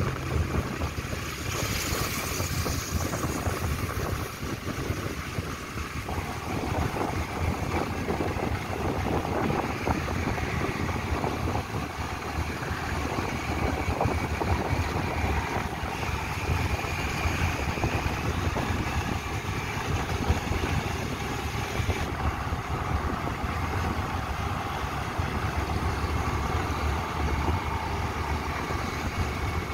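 Wind rushing over the microphone with a motorcycle engine running underneath, at a steady level while riding at road speed.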